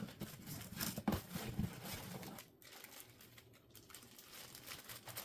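Packaging being handled while unboxing a sewing machine: crinkling and rustling with a few small knocks, busiest in the first couple of seconds, then quieter.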